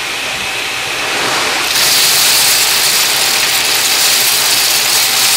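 A shower of plastic LEGO pieces pouring down onto a tabletop: a dense, continuous clatter like heavy rain that starts suddenly about two seconds in. A faint rising whistle leads in before it.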